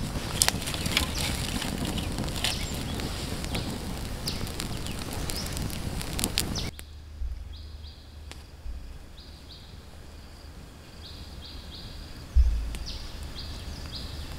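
Outdoor ambience: a busy, crackly stretch with many sharp clicks that cuts off abruptly about halfway, then quieter air with repeated short high chirps and a low thump near the end.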